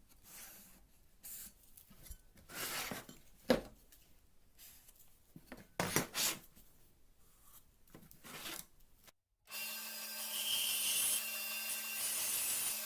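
Irregular scraping and rubbing strokes of hand work on a workpiece. After an abrupt cut, a steady hissing whir with a constant low hum runs through the last few seconds and is the loudest part.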